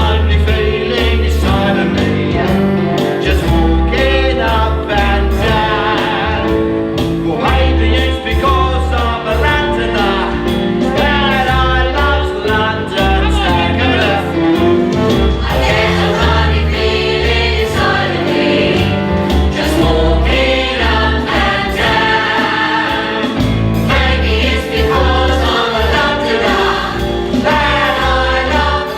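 Show-tune music with a group of voices singing over a steady beat and bass line.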